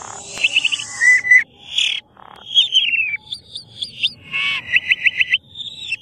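Asian pied starling calling in a varied chatter: quick rattling trills, whistled notes and harsh rasping calls, broken by short pauses.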